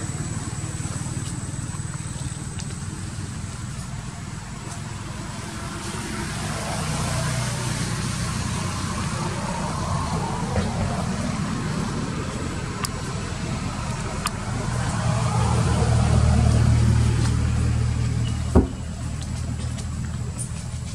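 A motor vehicle engine running, a low steady rumble that swells about three-quarters of the way through. A single sharp knock near the end.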